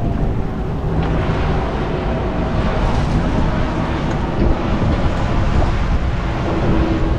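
Wind buffeting the microphone aboard a sailboat under sail, a loud steady rumble over the rush of wind and water.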